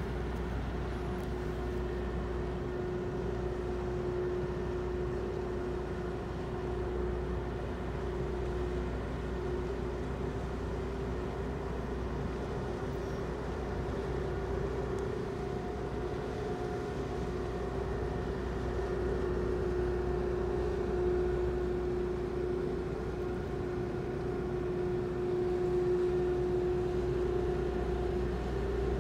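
A large car ferry's engines droning steadily as the ship comes into port: a steady hum over a low rumble, growing a little louder near the end.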